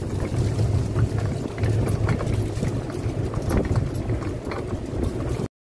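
Low, steady rumble of travelling along a concrete road, the noise of the ride and the air on the microphone, with a few faint ticks; it cuts off suddenly near the end.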